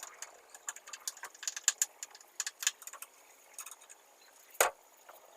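A rapid, irregular series of light clicks and taps, with one sharper knock about four and a half seconds in, over a faint steady high whine.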